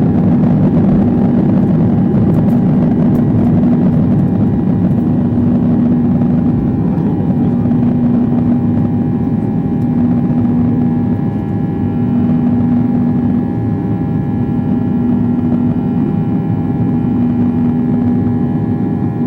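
Steady engine and air noise heard inside the cabin of a Boeing 737-800, its CFM56-7B turbofans running with a constant hum.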